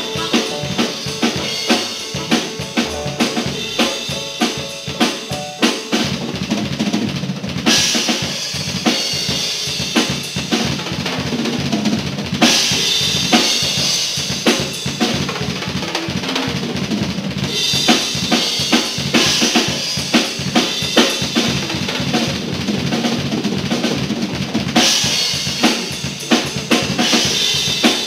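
Rock band playing live with no singing: a drum kit keeps a steady beat and is loudest, kick and snare hits driving it, with cymbals washing over it in stretches, under electric guitars and bass.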